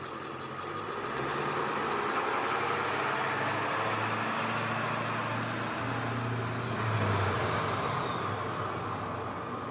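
A motor vehicle engine running steadily, a low hum over a wash of noise, a little louder about seven seconds in.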